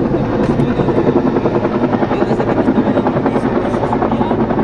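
Rescue helicopter's rotor beating loudly, with a rapid, even pulse.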